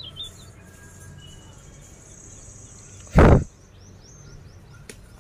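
Small birds chirping in short, quick notes over a thin, steady high whine that stops about three and a half seconds in. About three seconds in comes one brief, loud, dull thump, the loudest sound here.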